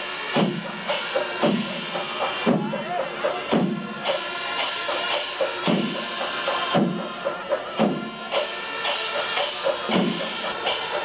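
Kerala temple percussion ensemble playing: deep drum strokes roughly once a second, cymbal-like clashes in between, and a wavering pitched line running underneath.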